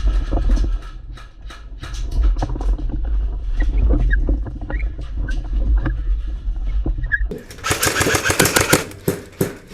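Wind buffeting a body-worn camera's microphone, with scattered sharp snaps of airsoft gunfire. About seven seconds in, the wind noise cuts off and a fast rattling burst of rapid clicks follows, like an airsoft gun firing on full auto.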